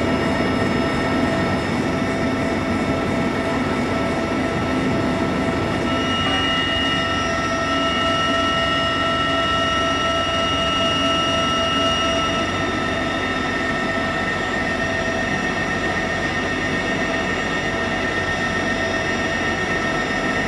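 Inside the cabin of a CH-47 Chinook helicopter, its engines and rotor drive running: a loud, steady drone with several high, steady whining tones on top.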